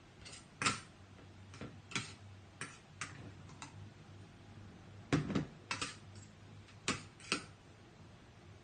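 Irregular light clicks and knocks, about a dozen, with a tight cluster of louder ones about five seconds in.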